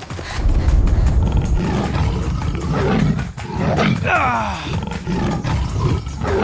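A large wild animal calling with low, rumbling vocalizations, and a burst of falling cries about four seconds in.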